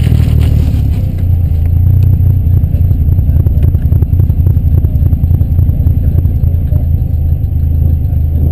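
Wind buffeting and road and engine noise from a moving car, picked up by a GoPro HD Hero 2 in its open-back case with vacuum plugs over the buttons: a loud, steady low rumble. The higher hiss thins out about a second in.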